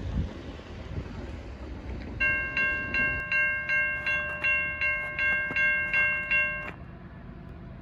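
Railroad grade-crossing warning bell ringing about three strikes a second, starting a couple of seconds in and stopping abruptly after about four and a half seconds, over a low steady rumble.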